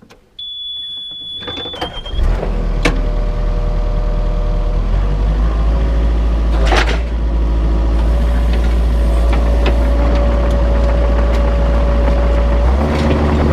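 A high steady beep, then an excavator's engine starts about two seconds in and runs steadily, its note shifting a couple of times.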